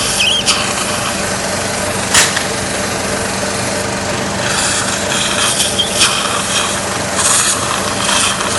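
Steady machine hum with hiss, with occasional sharp clicks and short scraping sounds of metal surgical instruments.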